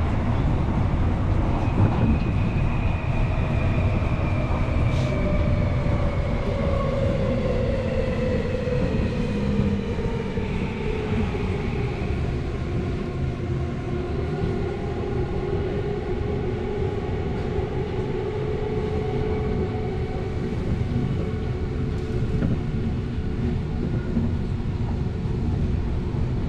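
Tokyo Metro Hibiya Line subway train running between stations, heard from inside the car: a steady rumble of wheels on rail, with a motor whine that slowly falls in pitch over the first dozen seconds and then holds steady.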